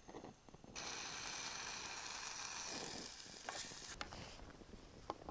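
Chicken masala for biryani sizzling in a steel pot on a small portable gas stove as a spoon stirs it. The steady sizzle starts about a second in and drops away about four seconds in, with a couple of light spoon clicks against the pot.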